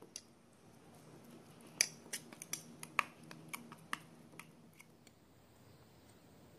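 Fork clinking against an open metal tuna tin as the tuna is scooped out: a quick run of about a dozen sharp clicks over about three seconds, starting about two seconds in.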